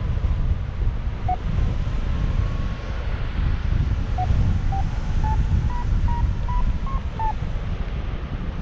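Airflow rushing over the microphone in paraglider flight. Over it, a variometer beeps once about a second in, then from about four seconds in gives a run of short beeps that rise in pitch for about three seconds, its signal that the glider is climbing in lift.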